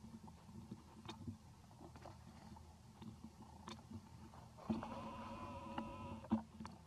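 Baby long-tailed macaque crying: one whining, pitched call lasting about a second and a half, starting about two thirds of the way in. Light clicks and rustles run under it, and a sharp tap comes as the cry ends.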